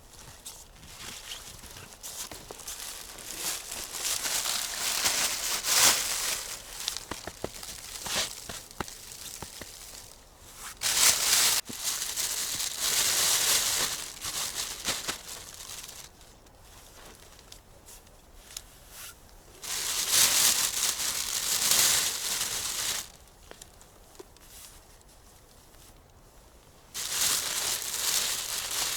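Rustling and crinkling, as of something being handled, in several spells of a few seconds each with quieter gaps between.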